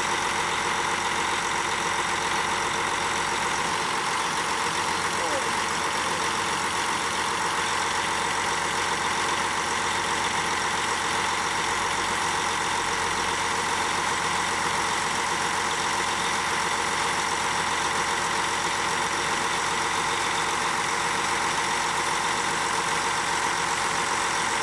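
Pump truck's 600 HP John Deere diesel engine running at a steady speed: an unchanging drone with a constant high hum over it.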